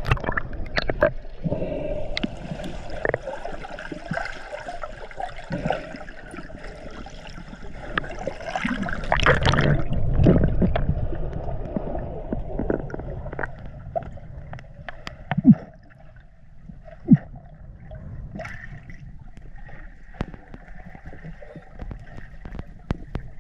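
Water gurgling and splashing, with scattered clicks and knocks. It swells for a couple of seconds about nine seconds in, and two sharp knocks come a second and a half apart past the middle.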